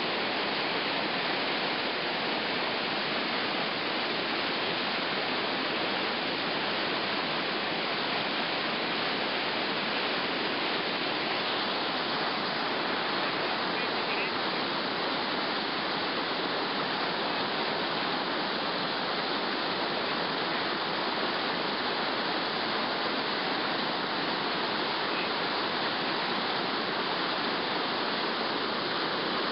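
River whitewater rapids rushing steadily over rocks, a continuous even wash of water noise.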